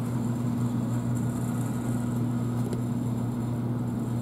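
Steady low electrical hum of a running three-rail O gauge toy train layout, holding one constant pitch.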